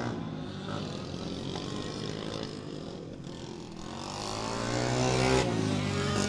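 Several racing go-kart engines running at speed. They grow louder as one kart comes close past, peaking about five seconds in, then falling away sharply.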